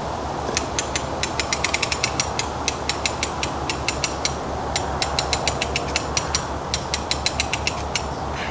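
Ratchet pawl of a Skywinch clicking in quick irregular runs as the winch is worked to draw in penstock pipe, with a brief pause about halfway through.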